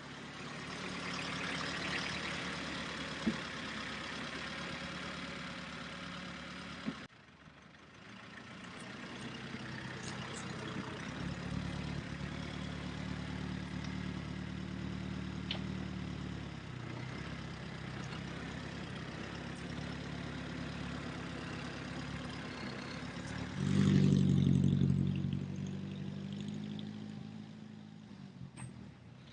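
1938 Austin Seven Ruby's small four-cylinder side-valve engine running as the car is driven, its note steady for most of the time. About three-quarters of the way through it gets louder and picks up revs, then eases off again.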